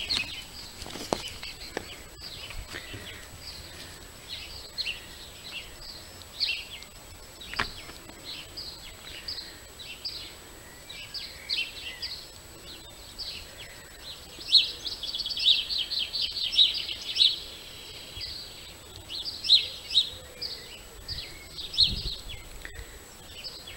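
Garden songbirds singing, a string of short high chirps and phrases, with a quick rapid run of notes about two-thirds of the way in, over a faint outdoor background hiss.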